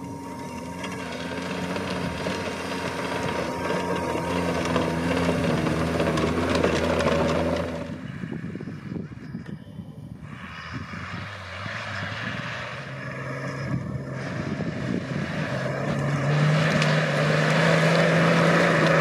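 Off-road 4x4 engines revving hard under load as the vehicles drive up a loose dirt track, with gravel and tyre noise. One engine's pitch and loudness build up to an abrupt cut about eight seconds in. A second engine then builds again, loudest and rising in pitch near the end.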